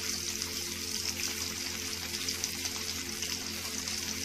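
Hot oil sizzling steadily around chickpea cutlets as they shallow fry in a pan.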